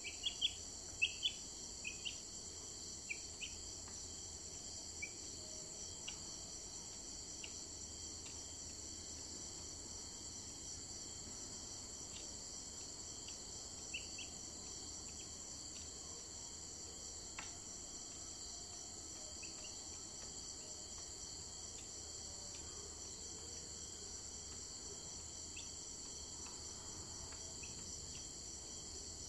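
Steady high-pitched chorus of insects chirping, crickets by the sound. Short high chirps cut in over it, several and loudest in the first couple of seconds, then only now and then.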